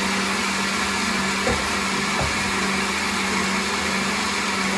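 Countertop blender running steadily, its motor giving a constant low hum under the whir as it purées a thick salsa of chiles, garlic, tomatoes and onion.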